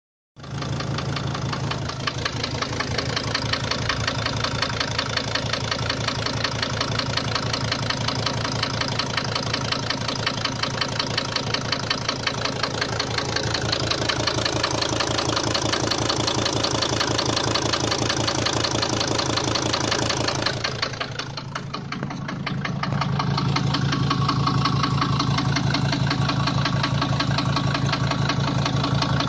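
Mercedes-Benz OM602 five-cylinder diesel engine idling with a steady, evenly repeating knock. About two-thirds of the way through, the sound briefly dips and turns duller, then comes back.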